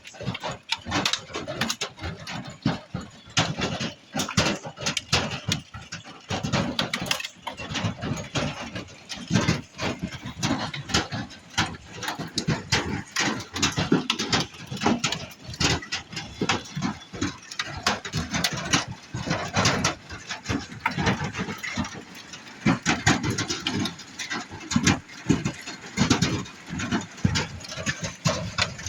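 Hailstones pelting the roof and walls of a trailer home, heard from inside as a dense, irregular clatter of many hits.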